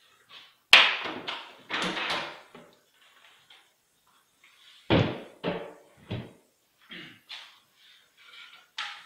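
Wood and clamp handling on a workbench: a sharp wooden knock about a second in, more knocks around two seconds, another loud thump about five seconds in, then lighter knocks and taps.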